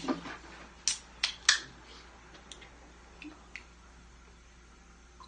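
Sharp clicks and taps from an aluminium drink can being handled over glasses on a table: three loud clicks close together about a second in, then a few faint ticks.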